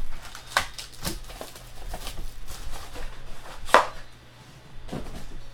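Irregular sharp taps and clicks on a hard table surface from handling and cutting open trading-card packaging, about five knocks with the loudest near the middle.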